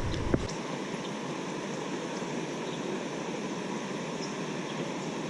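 Steady rushing of flowing creek water, with one short click shortly after the start.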